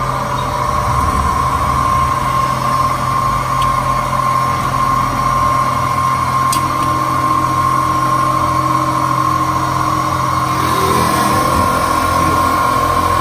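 Automated factory machinery running steadily: a low hum with a high steady whine on top. There is a sharp click about six and a half seconds in, and the sound shifts slightly near the end.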